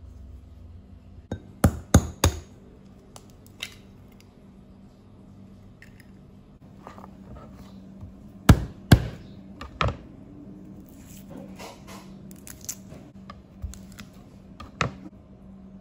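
Kitchen knife knocking sharply on a plastic cutting board while garlic cloves are cut, in a few separate strikes, followed by lighter clicks and crunches as the cloves are crushed under the flat of the blade. A faint steady low hum runs underneath.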